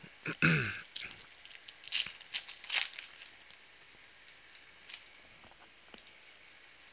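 Foil trading-card pack wrappers being torn open and crinkled by hand: a cluster of sharp rips and crackles in the first three seconds, the loudest about half a second in, then a few light clicks and rustles.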